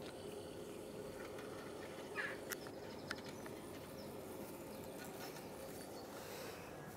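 Steady low outdoor hum with one short, high animal call about two seconds in, followed by a couple of sharp clicks.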